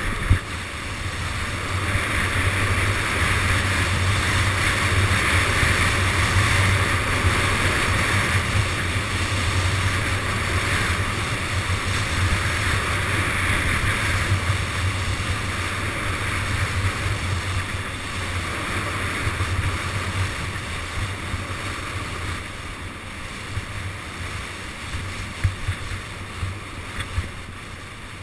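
Wind buffeting the microphone and skis hissing over groomed snow during a fast downhill ski run, with a low rumble and a hiss. It is loudest in the first half and eases off gradually toward the end, with one short knock just after the start.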